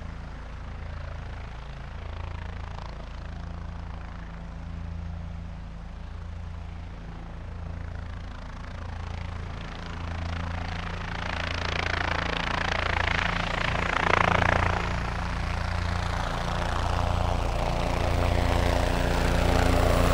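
Small multirotor drone's propellers humming steadily and growing louder as it closes in. A rushing swell of air comes about two-thirds of the way through.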